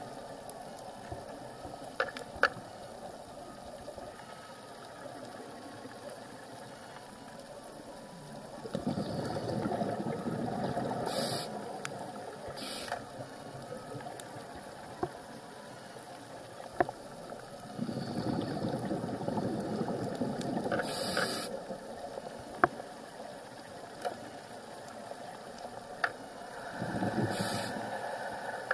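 Scuba diver's breathing heard underwater through the camera housing: three long rushing bursts of exhaled bubbles about nine seconds apart, with short high hisses of the regulator near them. Scattered sharp clicks run throughout.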